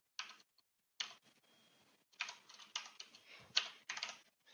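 Keystrokes on a computer keyboard: a couple of single keys in the first second, then a quick run of several keys from about two seconds in.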